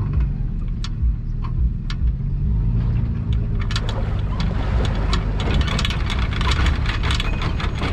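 Pickup truck engine running as the truck pulls the emptied boat trailer up the launch ramp. A few clicks early on, then a dense rattling clatter from about four seconds in.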